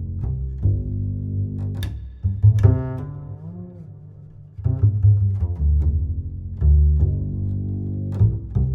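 Background music with deep, low string notes that change every half second to a second, softer for about a second near the middle.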